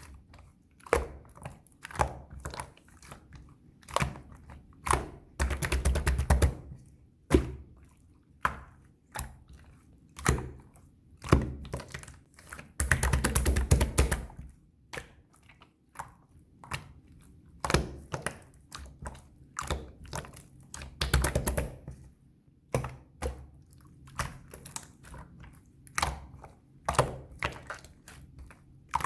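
Opaque yellow slime being squeezed and folded by hand, giving a run of sharp clicking pops of trapped air. There are three longer stretches of rapid crackling, about six, thirteen and twenty-one seconds in.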